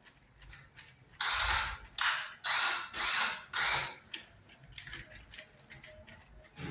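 A hand tool worked against metal or wood in five quick rasping strokes, about two a second, starting about a second in, followed by a few fainter scrapes.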